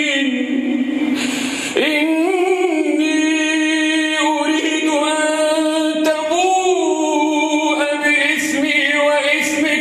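A man's voice reciting the Quran in the melodic tajweed style, drawing out long held notes that bend slowly in pitch, with a short break about a second in.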